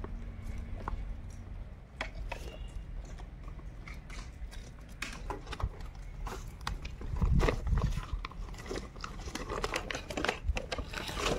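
A woven plastic sack crinkling and rustling as a caught catfish is handled inside it, with scattered scrapes and clicks. About seven seconds in comes a louder spell of thumping and rustling.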